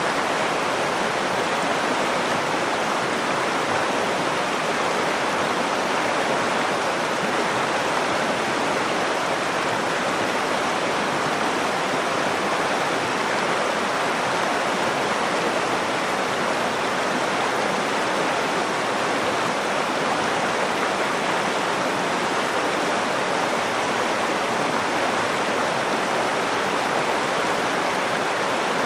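Nakdong River water rushing steadily, a continuous even flow with no breaks.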